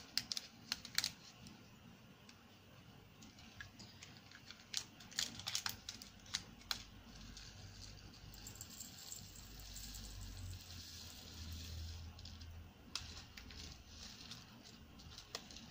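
Scattered light plastic clicks and taps from small diamond-painting bead pots and their lids being handled, with the resin drills inside rattling faintly.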